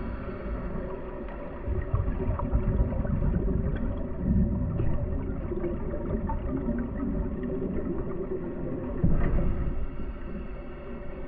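Dive boat's engine running steadily: a low rumble with a constant hum, swelling louder a few times.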